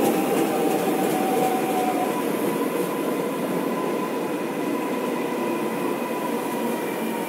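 Seoul Metropolitan Subway electric train moving past the platform: a steady rush of wheels on rail with a thin, high whine held under it, the whole slowly fading.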